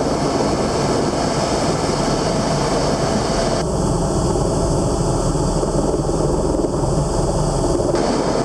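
Steady engine and cabin noise from inside a small aircraft taxiing on the ground. A faint low hum joins in about halfway through and drops out near the end.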